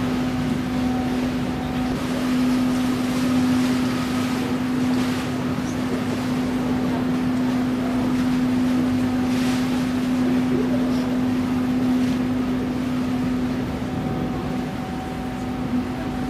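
River cruise ship's machinery humming steadily at one low pitch, with a wash of wind noise.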